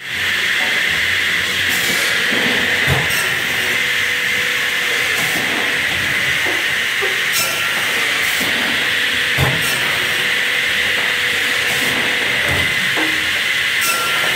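Industrial band saw running: a steady, loud, high hiss from the moving blade and machine, with a few light knocks scattered through it.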